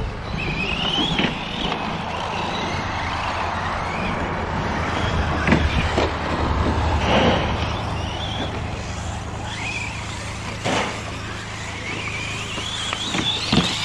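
Electric 4WD RC short-course trucks racing, their brushless motors whining and rising in pitch as they accelerate, then dropping off, several times over. There are a few sharp knocks along the way.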